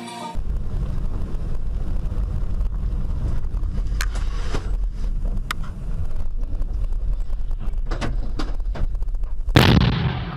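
Steady low rumble of a vehicle on the road heard through a dashcam's microphone, with a few faint knocks, then a sudden loud burst of noise near the end that dies away within a second.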